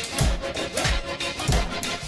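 Background music with a steady electronic beat: a deep kick drum about every two-thirds of a second, with hissing cymbal strokes between.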